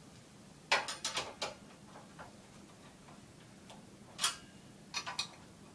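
Sharp metallic clicks and taps from a hand tool working the corner connector of an aluminium display frame as it is given a quarter turn to lock: a quick cluster about a second in, then a single click past four seconds and two more near five seconds.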